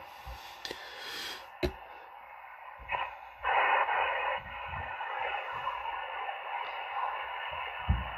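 Malachite DSP SDR shortwave receiver's speaker playing 20-metre band noise in upper-sideband mode: a steady, thin hiss, with a louder rush of static about three and a half seconds in. A couple of soft knocks.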